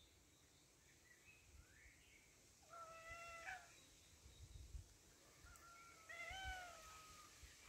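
Ginger-and-white domestic cat meowing twice: a short, even meow, then a few seconds later a longer meow that rises and falls in pitch.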